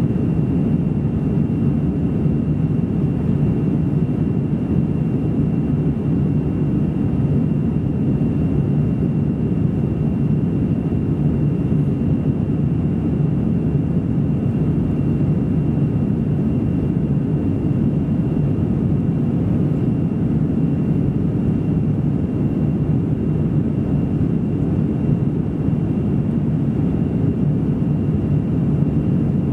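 Steady cabin roar of an Airbus A320-200 in flight, engine and airflow noise heard from inside the passenger cabin, with a faint steady high whine over it.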